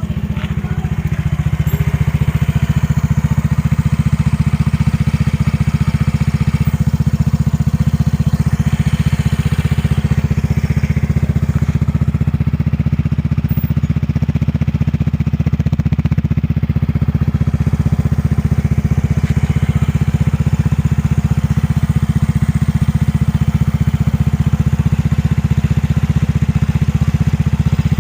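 Yamaha Mio i 125S scooter's single-cylinder engine idling steadily through a kalkal exhaust, a stock muffler with its internals dug out, just after starting. It settles to an even, throaty idle within the first couple of seconds and holds it with no revving.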